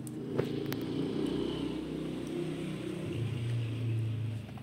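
A motor vehicle's engine running with a low, steady drone, with one sharp tap about half a second in.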